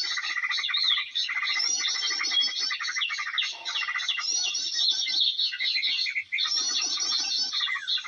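Dense, continuous chattering and chirping of many small birds at once: a noisy small-bird lure call ('burcil ribut') used to draw birds down to birdlime sticks.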